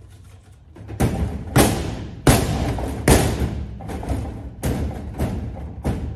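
Music cue of heavy percussion: about eight loud drum hits over roughly five seconds, each ringing briefly, over a low bass rumble.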